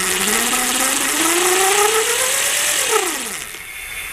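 Lightning Rods Big Block mid-drive electric bike motor whining as the throttle is opened, its pitch rising steadily for about three seconds, then falling quickly as the throttle is let off and the motor spins down. A high hiss runs with it and stops as it winds down.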